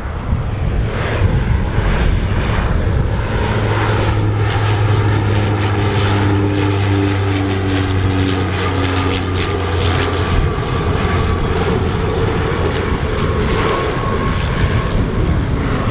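A Saab 340B twin-turboprop airliner flying over on approach to land, giving a steady low propeller drone that dips slightly in pitch as it passes.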